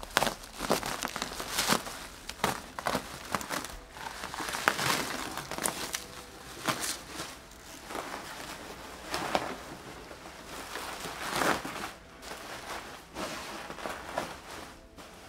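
Plastic bubble wrap crinkling and crackling as it is pulled and crumpled by hand, in irregular handfuls with louder snatches every second or so.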